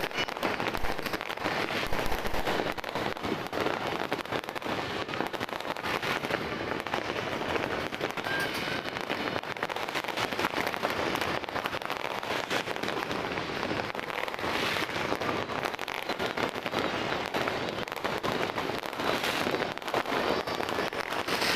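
Many firecrackers and fireworks going off at once, a dense, unbroken crackle of overlapping pops.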